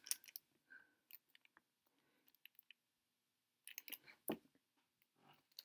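Faint crinkles and clicks of a phone battery's clear plastic packaging being handled, with a small cluster of clicks about four seconds in.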